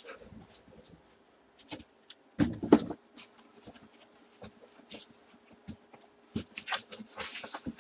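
Cardboard boxes being handled on a table: scattered taps, scrapes and rustles, with a louder knock and clatter about two and a half seconds in and a sliding rustle near the end, over a faint steady hum.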